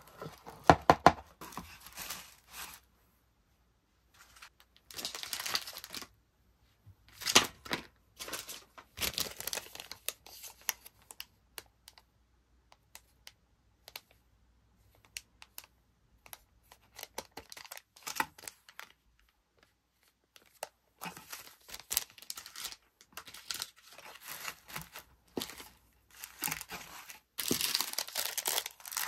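Paper and plastic packaging rustling and crinkling in short, irregular bursts with pauses and a few light taps: tissue paper, shredded paper filler and plastic sleeves being handled as items are packed into a cardboard mailer box.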